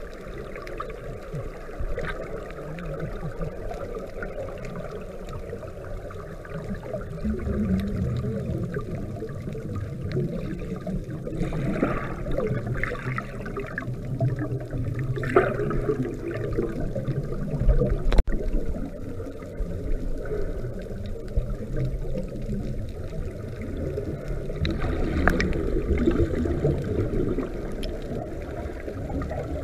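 Muffled underwater noise heard through a camera's waterproof housing, with a few bursts of bubbling from scuba divers' exhaled air, the clearest ones about twelve, fifteen and twenty-five seconds in.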